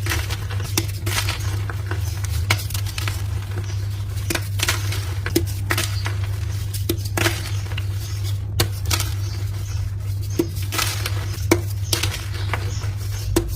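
Dyed gym chalk blocks being crushed, giving irregular crisp crunches and crumbling snaps about once a second, over a steady low hum.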